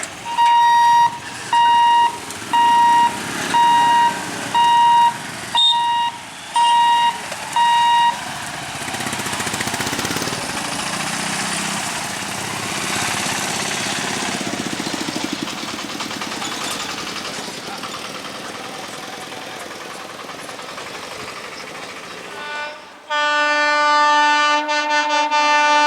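A high beep repeated about nine times, roughly once a second, then a train running past over the rails with a steady rumble and clatter. Near the end a train horn sounds loud and long.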